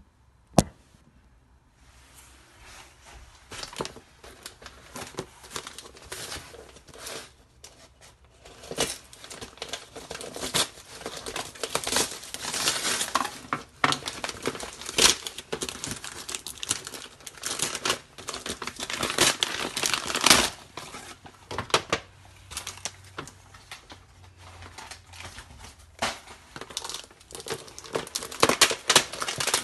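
Brown wrapping paper and packing tape being torn off a parcel and crumpled by hand, in irregular bursts of tearing and crinkling that begin about two seconds in. A single sharp tap comes just after the start.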